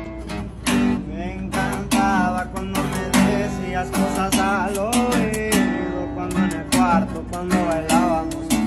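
Acoustic guitar playing a melodic lead line with bent notes over strummed chords, backed by an acoustic bass guitar, in a norteño-style intro.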